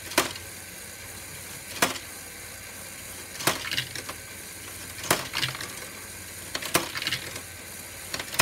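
LEGO Technic great ball contraption step module running: a steady motor-and-gear whir, with a sharp plastic clack about every second and a half followed by lighter clatter as the stepped lifters cycle and the small balls hop up the steps.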